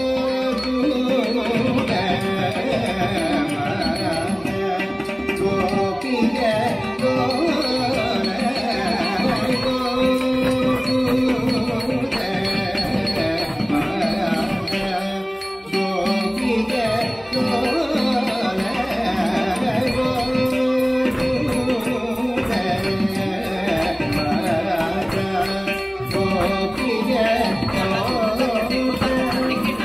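Carnatic classical music: a voice sings a melody over sustained drone tones, with hand-drum strokes keeping rhythm. There is a brief dip in the music about halfway through.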